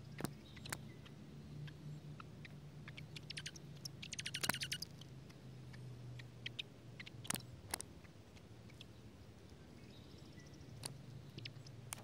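Scattered sharp ticks and taps of raindrops, with a short rapid run of high chirps from the dark-eyed juncos at the nest about four seconds in. A low steady hum lies underneath.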